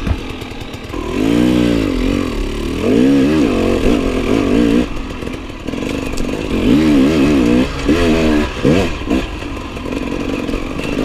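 Enduro dirt bike engine revving, its pitch rising and falling several times as the throttle is opened and closed on a climb.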